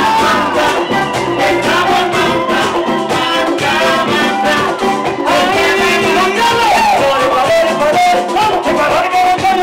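A live Latin band playing a dance number: male lead vocals over electric and acoustic guitars and congas, with a steady beat.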